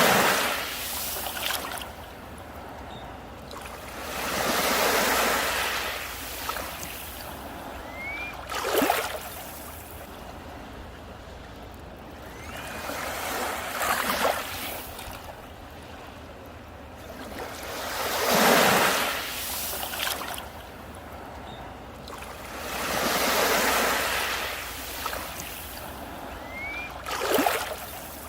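Sea waves breaking on a beach and washing up, a surge about every four to five seconds, some with a sharper crash. A faint short rising chirp sounds three times.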